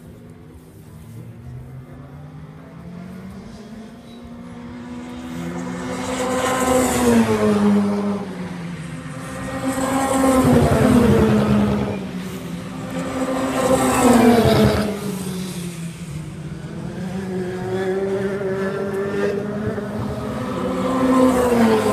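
Race car engines on the circuit, among them an open-wheel single-seater, passing one after another at speed. Each engine note swells as the car comes by and then drops in pitch, with the loudest passes about a third of the way in, in the middle, and near the end.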